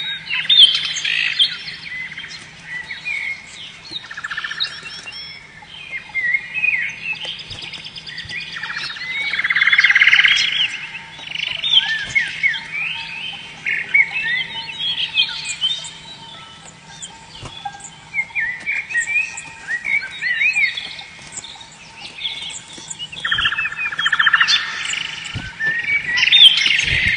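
Canary singing a long, varied song of quick whistled chirps and rapid rolling trills, the loudest trills about 9 to 10 seconds and 23 to 25 seconds in. A faint steady low hum runs underneath.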